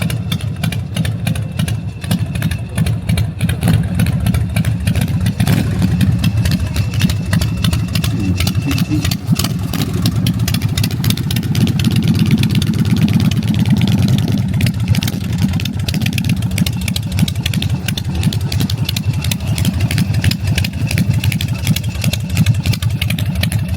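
Motorcycle engine running at idle with a rapid, even firing pulse, getting louder about six seconds in.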